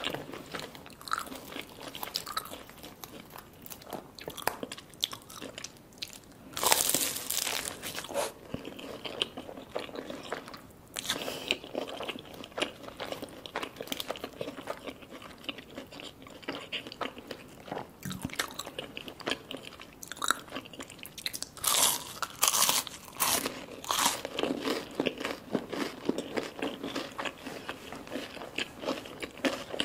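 Close-up eating sounds: crispy fried chicken samosa pastry being bitten and chewed, with wet mouth clicks throughout. Loud crunches come about a quarter of the way in and again about three quarters through.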